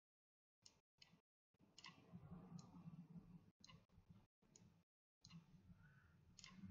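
Faint computer mouse clicks, several of them at irregular intervals, with near silence between.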